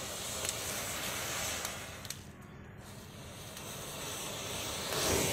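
Bundled safety matches flaring up as the fire spreads through them: a steady hiss of igniting match heads with a few sharp crackles. It grows louder near the end.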